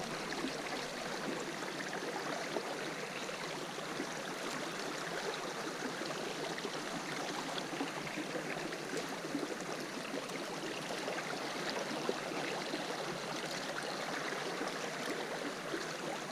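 Shallow river water running steadily over a gravel bed, a constant rushing with a faint bubbling texture.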